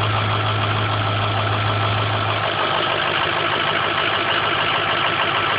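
Ford 6.0 Powerstroke V8 turbo-diesel idling with its solenoid plugged back in, the condition in which it makes a nasty grinding noise at the exhaust end and builds no boost. A steady low hum drops out about two and a half seconds in, leaving a rougher, uneven rumble.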